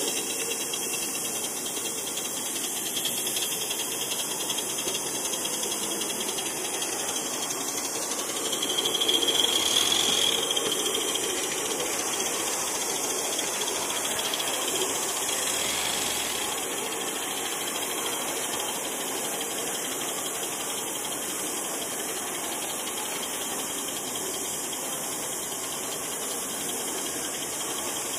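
Miniature 2.5-inch gauge LBSC 'Ayesha' live steam locomotive under way: a steady hiss of steam with the rattle of wheels running over the track. About nine seconds in, a steady high-pitched note swells for a couple of seconds and is the loudest sound.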